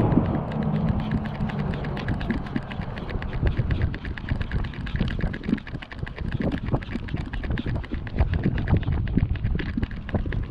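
Footsteps and rapid light clicks of walking on a paved path, several a second, over a steady low rumble.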